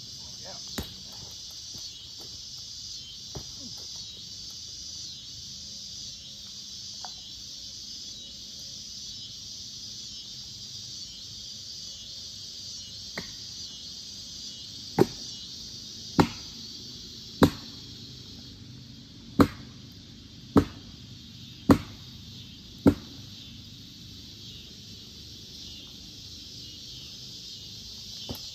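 Seven sharp hammering strikes on a log, about a second apart, over a steady chirring of crickets; fainter knocks come earlier.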